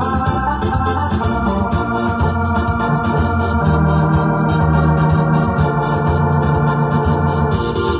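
Electronic arranger keyboard played live: a melody and chords over held bass notes that change every second or two.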